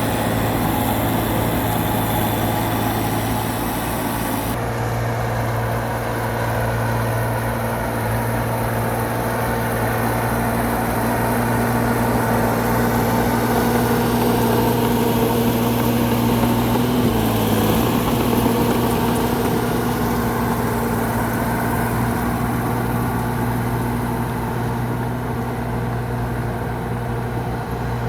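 Heavy diesel engines of an excavator and dump truck running steadily, with a brief dip in engine pitch about seventeen seconds in.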